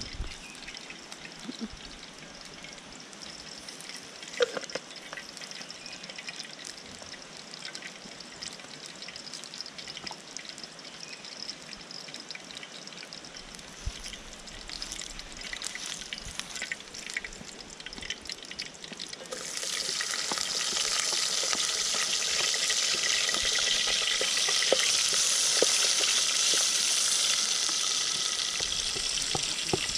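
Cooking oil in a pan sizzles faintly, then about two-thirds of the way through onions go into the hot oil and it breaks into a loud, steady sizzle of frying.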